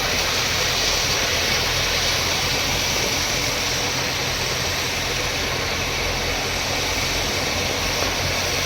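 A vehicle engine running steadily, with a constant broad hiss over it.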